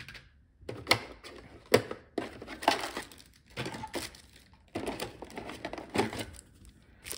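Clear plastic accessory bags crinkling and rustling while being handled in a moulded plastic packaging tray. A few sharp plastic clicks and taps come in the first two seconds.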